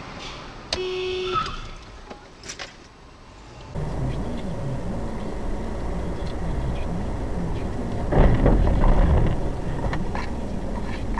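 Car driving, recorded by a dashcam: steady engine and road noise. A short horn-like tone sounds about a second in. A few seconds in, the noise turns louder and fuller, with a heavier rumble around eight seconds in.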